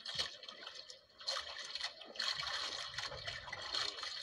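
Seawater splashing and lapping around a small wooden outrigger boat in irregular surges.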